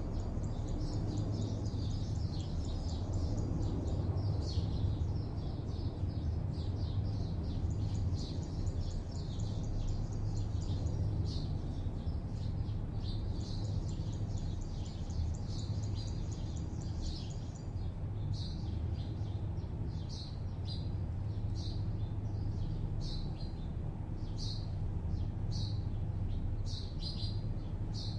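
Small birds chirping and twittering over a steady low hum of distant city traffic. The chirping is dense at first and thins to separate short chirps in the last third.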